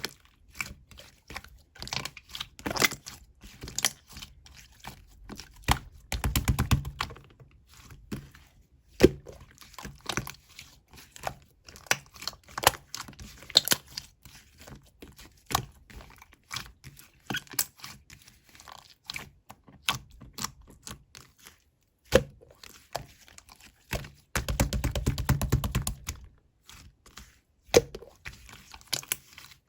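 Glossy slime being squeezed, poked and stretched by hand, giving sticky clicks and pops throughout. There are two stretches of rapid, dense crackling, about six seconds in and again near twenty-five seconds.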